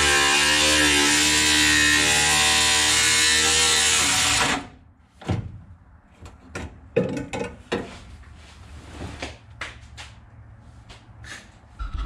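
Ryobi cordless grinder with a cut-off wheel slicing through thin sheet steel, running with a steady high whine and grinding hiss, then stopping about four and a half seconds in. Scattered clicks and knocks follow as the metal is handled.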